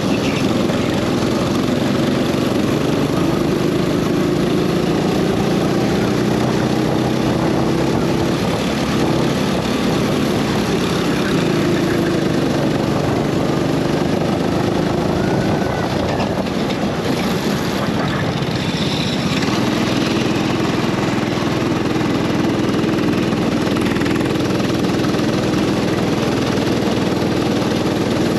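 Go-kart engine heard onboard, running continuously with its pitch rising and falling as the kart goes through the lap. About two-thirds of the way through it eases off briefly, then picks up again.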